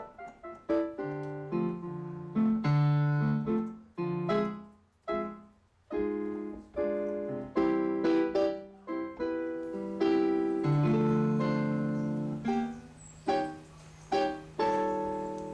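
Background piano music: chords and single notes, each struck and left to fade.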